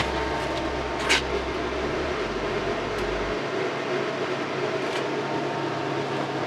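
Steady whir of a Pioneer 9,000 BTU ductless mini split heat pump running in cooling mode, its fan blowing air. There is a short knock about a second in, and a low hum underneath drops away about two to three seconds in.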